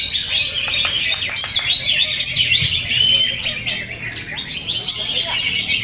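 Several green leafbirds (cucak ijo) singing at once: a dense, unbroken stream of overlapping chirps, trills and quick whistled sweeps, dipping briefly about two-thirds of the way through.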